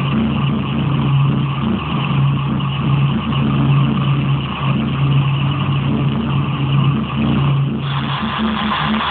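Loud electronic drone from a spinning kinetic light sculpture's sound system: low held notes that pulse on and off over a rough hiss, the hiss growing brighter near the end.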